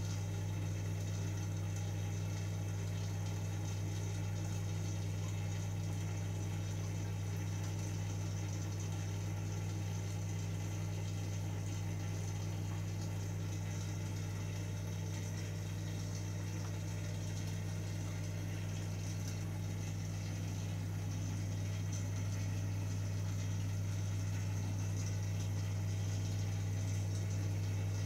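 Aquarium pump running: a steady low hum with water bubbling over it.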